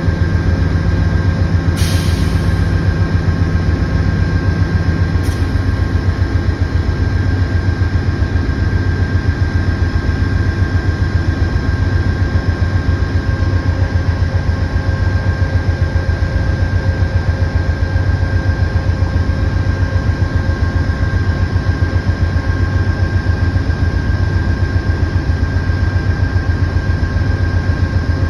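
Amtrak GE P42DC diesel locomotive idling while the train stands still: a loud, steady low rumble with an even pulsing beat and a steady high whine over it. A short hiss comes about two seconds in.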